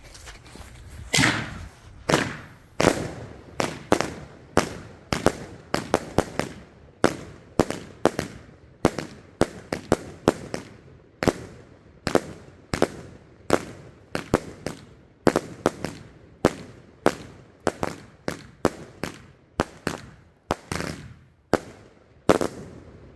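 A 'Pigs In A Blanket' 36-shot consumer firework cake firing its shots in a steady volley. Sharp launch pops and bangs come roughly one to two a second, starting about a second in and stopping just before the end.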